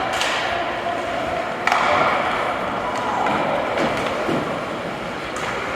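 Ice hockey play: skates scraping across the ice with sharp clacks of sticks and puck, and a louder knock about a second and a half in.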